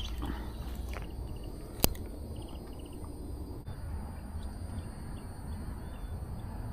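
Quiet outdoor ambience: a low rumble with faint, short, high chirps, broken by a single sharp click about two seconds in.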